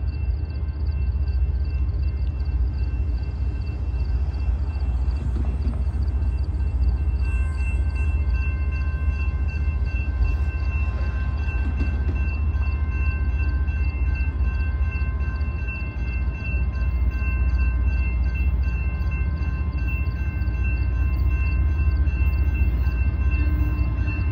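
Railroad grade-crossing bell ringing in a quick steady rhythm while the crossing is active, over the low rumble of an approaching diesel train.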